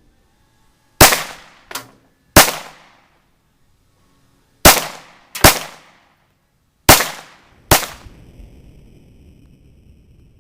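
Six loud Glock pistol shots, the later ones in pairs under a second apart, with a fainter crack just after the first; each report dies away over about half a second.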